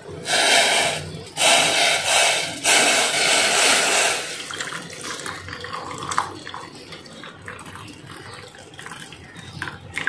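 Lemongrass kehwa poured from a steel pot through a plastic tea strainer into a mug: three loud splashing pours in the first four seconds, then a thinner trickle with light clicks and clinks.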